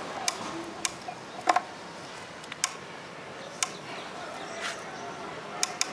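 Hand screwdriver driving a screw into a wooden box: sharp, irregular clicks and knocks of the blade in the screw head and against the wood, the loudest about a second and a half in.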